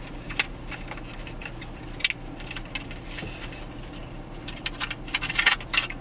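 Plastic dash trim and wiring harness connectors clicking and rattling as they are handled, with a sharp single click about two seconds in and a quick run of clicks near the end, over a low steady hum.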